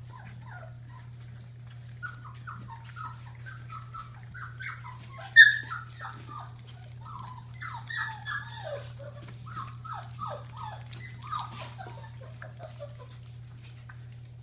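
A litter of young Labrador Retriever puppies whimpering and yelping in many short, high cries that fall in pitch, one sharp yelp about five seconds in louder than the rest. A steady low hum runs underneath.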